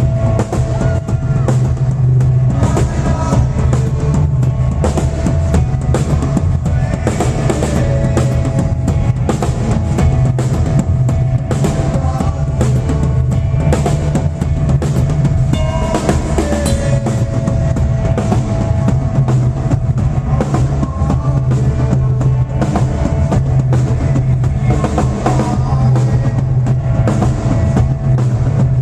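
A band playing loudly, driven by a drum kit with bass drum and snare hits over a steady, heavy bass line and held notes.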